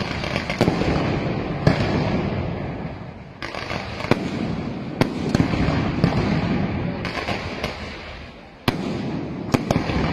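Fireworks display: repeated sharp bangs of bursting shells over a dense, steady crackle, with fresh volleys starting suddenly about three and a half and eight and a half seconds in.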